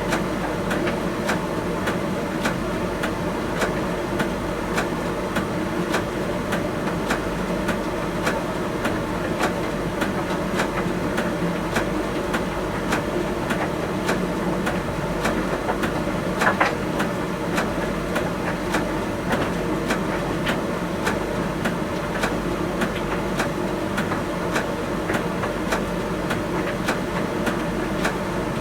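Miele T1 heat-pump tumble dryer running with a steady hum, with regular light clicks of the load tumbling in the drum and one louder knock a little past halfway.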